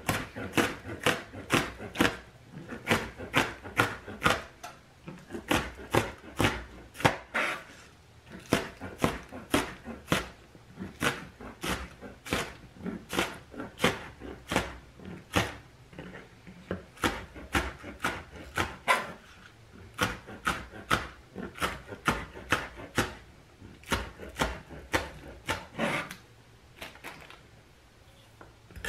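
Chef's knife slicing green onions on a plastic cutting board: a steady run of sharp knocks, about two to three a second, with a few short pauses.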